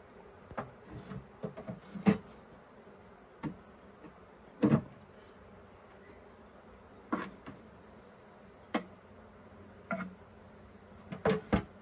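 Honeybees buzzing as a low steady hum around an open hive, broken by about eight irregular wooden knocks and clunks as hive frames are lifted and set into a wooden hive box.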